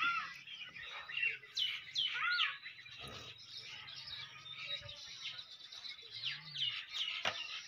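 Several small birds chirping and calling, a mix of quick repeated chirps and short sweeping whistles that overlap.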